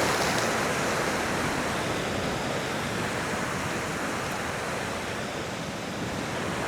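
Ocean surf washing against the rocks in a heavy swell: a steady rushing wash that eases slightly towards the end.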